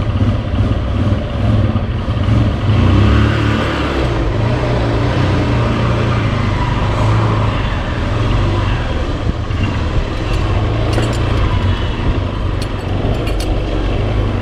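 Motorcycle engine running at low speed as the bike pulls away and rides out onto the street, a steady low engine note throughout.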